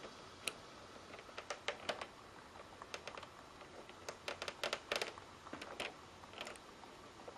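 Light, irregular clicks and taps of plastic parts and connectors being handled and pressed into place inside an opened PS3 Slim console.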